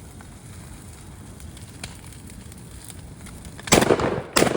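Gasoline-soaked pile of trash burning, with a steady low rush and scattered faint crackles. Near the end there are two loud bursts about three quarters of a second apart.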